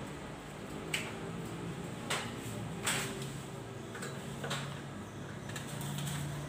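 Pruning shears snipping grapevine canes: four sharp clicks at uneven gaps, with a few fainter ones later, over a faint low steady hum.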